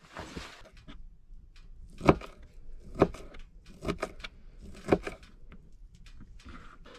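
Kitchen knife chopping garlic cloves on a plastic cutting board: four sharp knocks about a second apart, with lighter clicks and taps between them.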